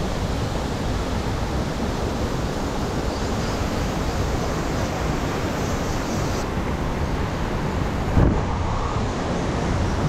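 Steady rushing of a fast river current. A brief thump comes about eight seconds in.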